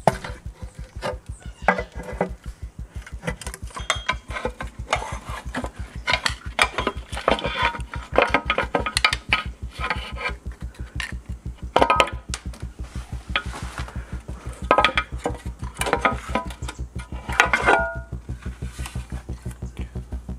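A screwdriver prising a cracked oil sump off a 1.8T engine: repeated metallic scraping, clinks and knocks as the pan is levered loose. Background music with a steady beat plays throughout.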